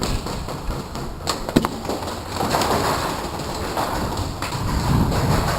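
Airsoft gunfire in an indoor arena: a few sharp snaps of shots or BB impacts, three in quick succession about a second and a half in and another past four seconds, over a steady noisy din of play.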